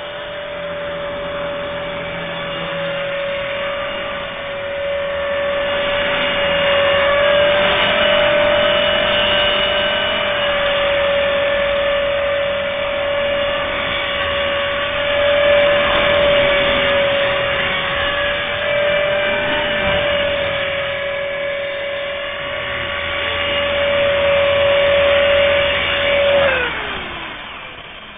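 RC helicopter in flight, its motor and rotor giving a steady high whine whose pitch wavers a little and whose loudness swells and fades as it moves about. Near the end it lands, and the whine slides down in pitch and dies away as the rotor spins down.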